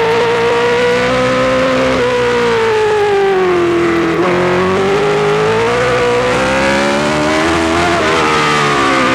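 BRM V8 engine of a 1967 Formula One car, heard from the cockpit, running hard. Its pitch sinks over about four seconds, climbs again, then dips near the end.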